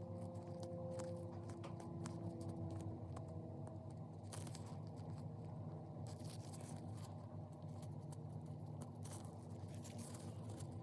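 Wooden toothpick scraping and picking acetone-softened glue off a metal brooch: faint, irregular scratches and small clicks over a steady low hum.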